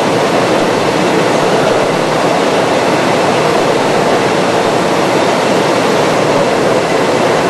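Steady, loud mechanical rushing noise, even throughout with no knocks, starts or changes.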